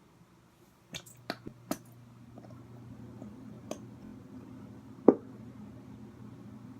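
A few sharp clicks and taps of plastic bottles and containers being handled while making slime, the loudest a bit after halfway, over a low steady hum that starts about a second in.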